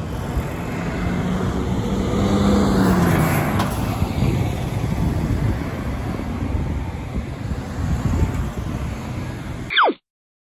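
City street traffic: cars and a truck passing, with tyre and engine noise and one vehicle's engine hum swelling loudest about two to three seconds in. Near the end a brief falling swoosh, then the sound cuts off suddenly.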